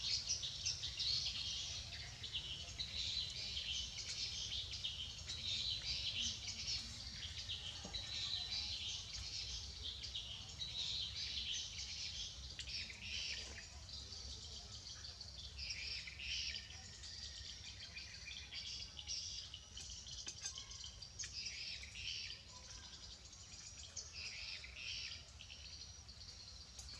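Many small birds chirping and calling continuously in a chorus, a little fainter in the second half, over a low steady hum.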